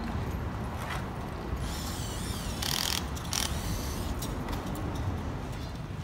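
Metal hand-tool work on railway track: a wavering high scrape, then short rasping, ratchet-like bursts about two to three seconds in. A steady low rumble runs underneath.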